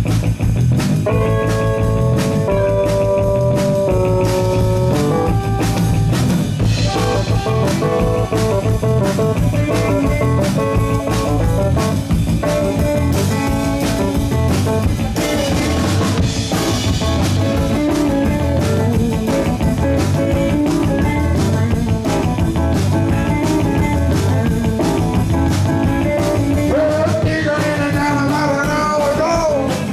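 A live rock band playing a blues-rock number, with drum kit and guitar over a steady beat and held chords in the first few seconds.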